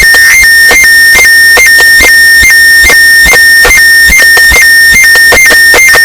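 Very loud electronic music: a steady high synthesized tone that hops briefly up in pitch about twice a second, over an even beat of sharp hits at about the same rate.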